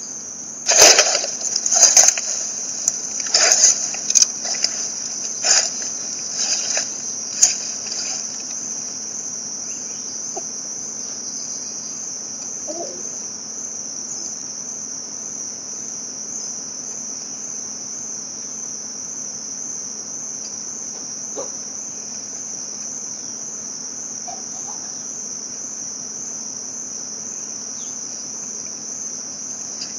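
Steady high-pitched insect chorus. During the first eight seconds it is broken by a string of sharp crackling rustles in dry bamboo leaf litter.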